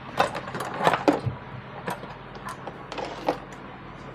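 Irregular clicks and knocks from hands working the amplifier's wiring and plugs, about eight over four seconds, over a steady low mains hum.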